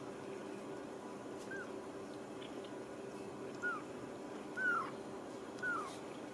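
Ragdoll kitten mewing: four short, high mews, each falling in pitch, the first about a second and a half in and the other three about a second apart later on.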